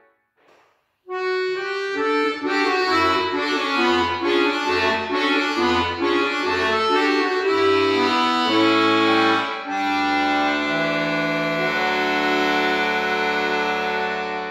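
Piano accordion played solo: after a brief pause, a melody over a steady pulse of low bass notes, then from about ten seconds in a long held chord.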